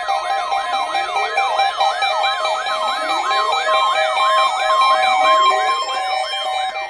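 Several electronic siren alerts sounding together, typical of weather alert radios set off by the NOAA Weather Radio warning-alarm test. A fast yelp repeats about three or four times a second over a slower wail that rises every two seconds, with steady beeping tones underneath.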